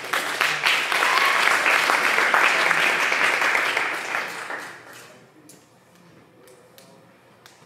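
Audience applause, loud for about four seconds, then dying away to a few scattered claps.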